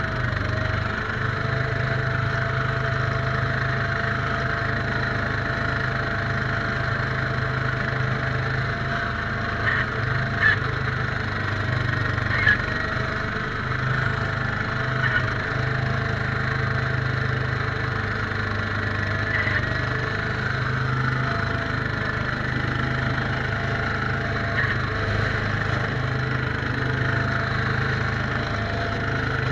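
Case 442 garden tractor engine running steadily while it drives a front-mounted snowblower, heard from inside the tractor's cab. A few brief clicks or knocks stand out over the steady drone.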